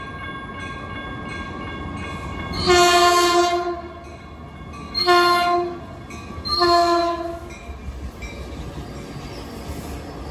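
Caltrain commuter train sounding its horn in three blasts, the first and last longer than the middle one, as it approaches and passes, with the train's steady rumble on the rails underneath.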